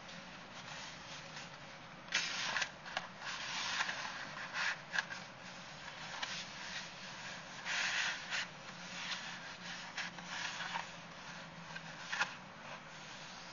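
Irregular rustling and scraping close to the microphone, in uneven bursts with a few sharp clicks, starting about two seconds in.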